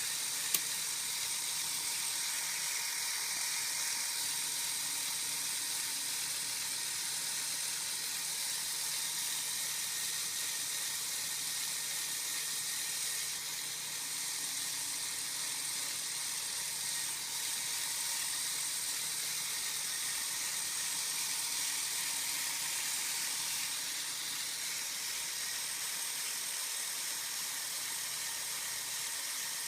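Lego Technic four-wheel-drive gear train with its differentials running, a steady high-pitched whir of plastic gears, with a single click about half a second in.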